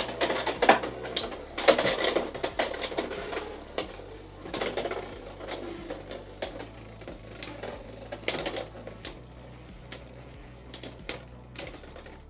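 Two Beyblade X spinning tops clash and clatter in a plastic stadium after launch, making rapid rattling hits. The collisions are thick and loud over the first few seconds, then thin out to scattered faint clicks as the tops spin down.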